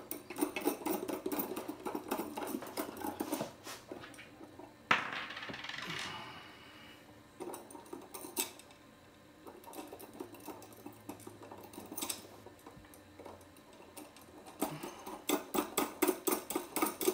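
Small metal hardware clinking as washers, lock washers and nuts are fitted by hand onto the threaded ends of an antenna mount's U-bolt, with a sharp knock about five seconds in and a quick run of ticks near the end as a nut is spun on.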